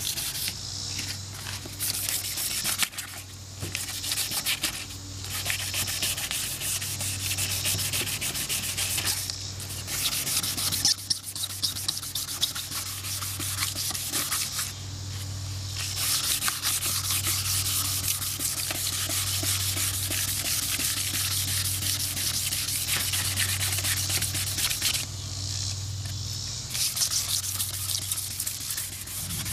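600-grit wet sandpaper rubbed by hand back and forth over a plastic headlight lens: a steady scratchy rasp with a few brief pauses. It is smoothing off the cloudy, UV-weathered surface layer of the lens.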